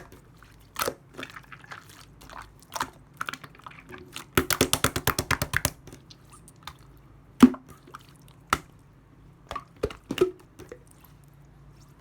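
Clear slime being pressed and squished by hand, giving sharp wet clicks and pops, with a quick run of about a dozen clicks a little over four seconds in.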